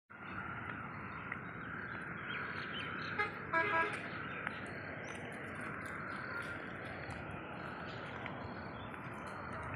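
Steady street and traffic noise, with a short vehicle horn toot about three and a half seconds in.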